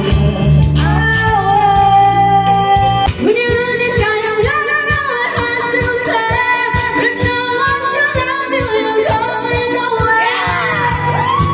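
Background pop song with a woman singing over a steady beat.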